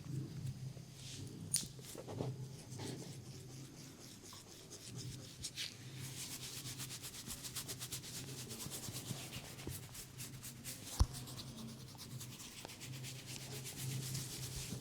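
Hands rubbing and massaging a person's scalp and hair, scattered strokes at first, then a run of fast, even rubbing strokes in the second half. A single sharp click about eleven seconds in.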